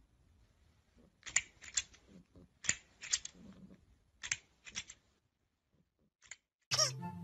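Plastic crocodile snapping toy clacking its jaws: three pairs of sharp plastic clicks, the two in each pair about half a second apart. Music starts abruptly near the end.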